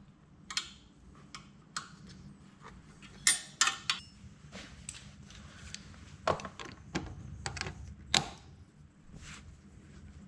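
Irregular metallic clinks and taps of hand tools on metal, as an Allen key is fitted to and worked on a motorcycle exhaust mounting bolt.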